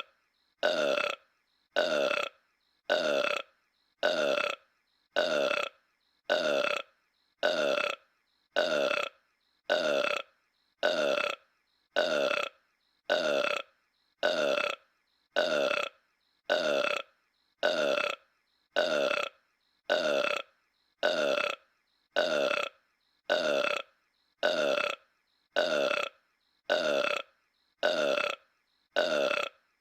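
A cartoon character's short, pitched burp, looped so the same burp repeats about once a second, each repeat identical.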